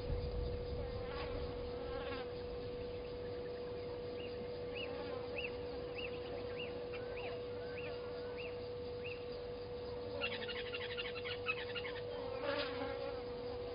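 A steady hum holds one pitch throughout. Over it a bird calls faintly: a run of about nine short, evenly spaced high notes, then a brief rapid chatter and one more short call near the end.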